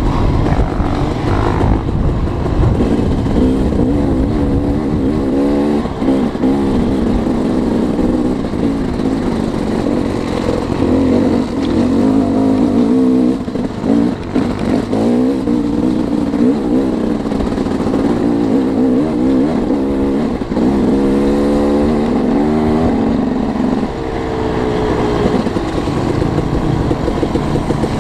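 KTM 250 EXC-F dirt bike's single-cylinder four-stroke engine under way on a trail, its note rising and falling again and again as the throttle is opened and shut.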